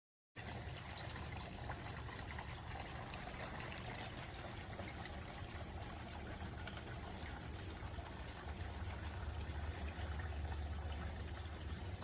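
Resin rain-curtain waterfall fountain running, its water falling and splashing in a steady, even rush with a low rumble underneath. It starts abruptly about half a second in.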